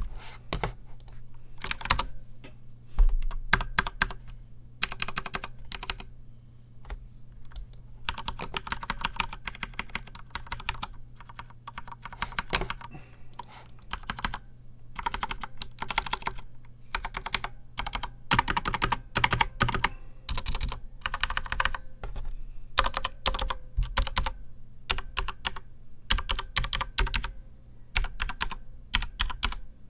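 Typing on a Corsair K95 RGB Platinum mechanical keyboard with linear Cherry MX Speed Silver switches: quick runs of keystrokes in bursts separated by short pauses.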